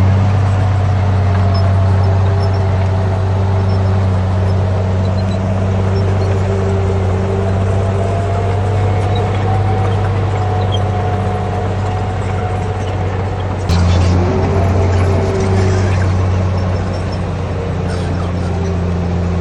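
Komatsu D58P bulldozer's diesel engine running steadily under work, with a wavering whine above the engine note. A single sharp clank comes about fourteen seconds in, after which the engine note briefly dips and then recovers.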